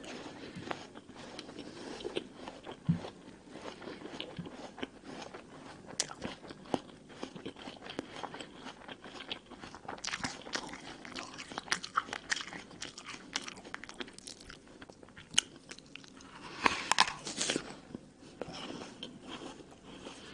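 Close-up chewing of raw red apple: wet crunching and small crackling clicks as the flesh is bitten and chewed. Near the end a louder burst of crunching, as a fresh bite is taken from a second apple.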